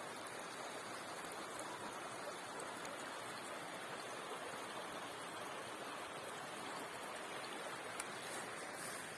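A small mountain river running over stones: a steady, even rush of water.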